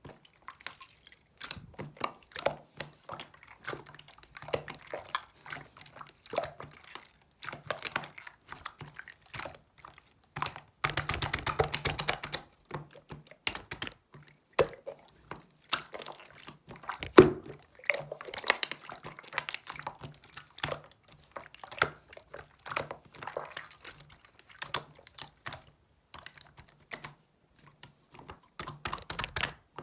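Close-miked eating of soft fruit and pudding: irregular wet chewing and squishing with small clicks, a denser stretch of noise about eleven seconds in and one sharp knock about seventeen seconds in.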